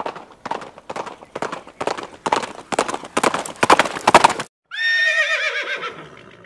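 American Saddlebred's hooves clip-clopping in a quick, even rhythm, about three beats a second, growing louder. The hoofbeats stop abruptly, then a horse whinnies: one long wavering call that falls in pitch and fades.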